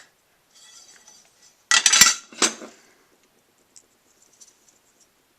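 Metal computer parts clinking and clattering as they are handled, with a loud cluster of sharp clacks about two seconds in and a few small ticks after.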